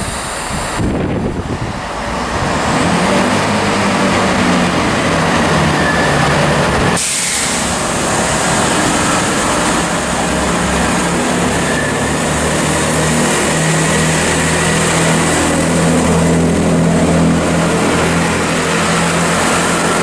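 Underfloor diesel engines of a Class 165 and a Class 166 Networker Turbo multiple unit working hard as the train pulls out of the platform, a loud steady engine drone as the carriages pass close by.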